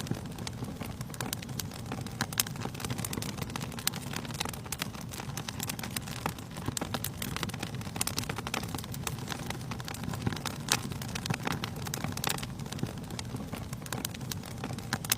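Wood fire burning in a fireplace: constant crackling with scattered louder pops over a steady low rumble of the flames.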